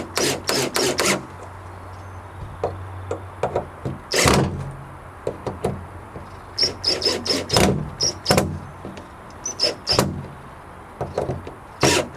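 Hand-tool work on a wooden gate while fitting a hasp latch: quick runs of sharp clicks and knocks, some with a bright metallic ping, over a low steady hum, with a longer noisy burst about four seconds in.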